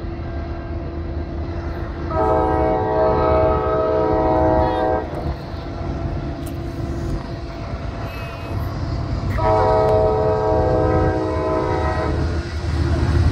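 CSX diesel locomotive approaching and sounding its multi-chime air horn in two long blasts of about three seconds each, a few seconds apart, over a steady low rumble.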